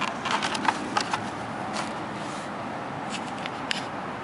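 Crackles and clicks of a paper menu being handled and flipped against a styrofoam takeout container, a cluster in the first second or so and a few more later, over a steady background rush.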